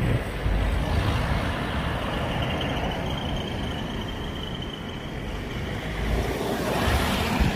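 Road traffic noise along a village street, with wind buffeting the microphone in low gusts.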